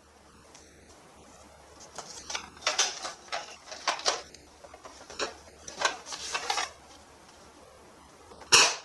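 Hard plastic clicking and rattling as a toy gun is handled, in short irregular bursts, with one sharper, louder snap near the end.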